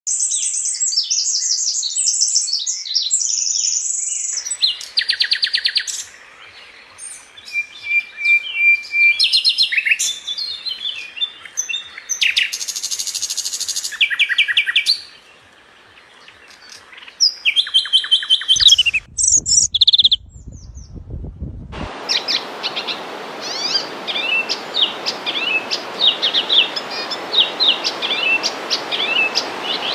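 Small birds chirping in quick, high-pitched runs, across several joined recordings that change abruptly. A low rumble sounds for a couple of seconds past the middle, and in the last third a dense chorus of chirps sits over a steady hiss.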